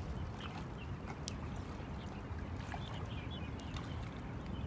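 Open-air riverside ambience: a steady low rumble of wind on the microphone, with scattered faint short chirps and clicks.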